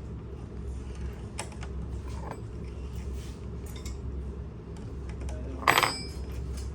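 Metal hand tools clinking against each other, with one sharp ringing clank near the end, over a steady low hum.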